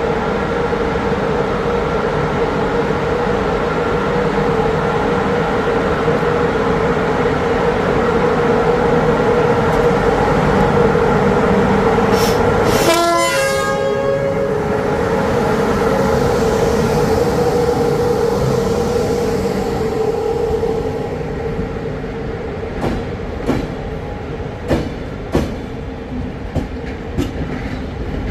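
A train passing close by. A steady, loud, multi-tone sound holds for about twenty seconds, with a quick falling sweep of tones around the middle. It then quietens, and the wheels click over the rail joints in an uneven rhythm near the end.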